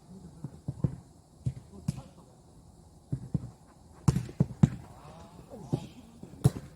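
Jokgu ball bouncing on the court and being kicked: a string of sharp thuds, the loudest about four seconds in and near the end, with a brief call from a player in between.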